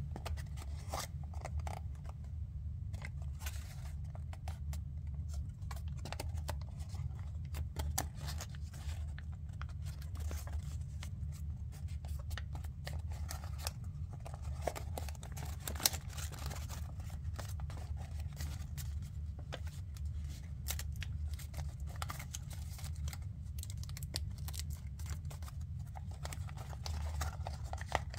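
Pleated origami paper being folded and pinched by hand: scattered crisp crinkles and ticks as the creases are pressed, over a steady low hum.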